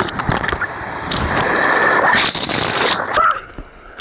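Rushing water and splashing close around a camera held at and under the surface of a river cascade. About three seconds in the sound turns dull and much quieter, as when the microphone goes under water.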